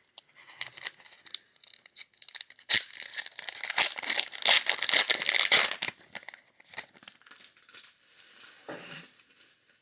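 Foil Pokémon booster pack wrapper being torn open and crinkled, a dense run of crackling that is loudest from about three to six seconds in, then softer rustling near the end.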